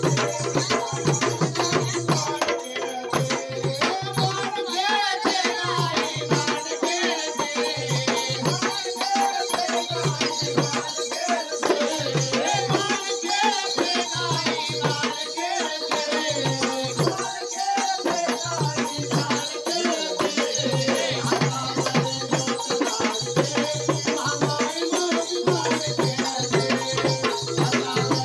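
Live Konkani Shimga folk song: a man's voice singing through a microphone over a two-headed barrel drum beaten in a steady rhythm, with a hand-held frame drum and jingling percussion.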